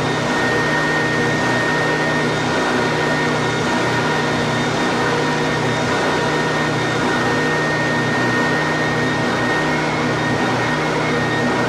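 WEN 6523 oscillating belt and spindle sander running steadily with its sanding belt fitted and no workpiece on it, while the belt tracking is being adjusted.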